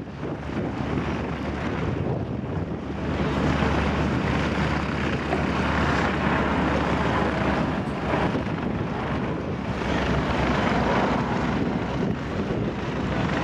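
Airbus A320's twin turbofan engines in a low display flyby: a steady jet roar that grows louder about three seconds in as the airliner passes overhead.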